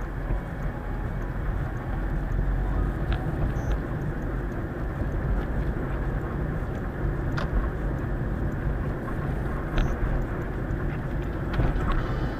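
Steady rumble of road and engine noise inside a moving car, picked up by a windshield-mounted dashcam, with a few brief clicks.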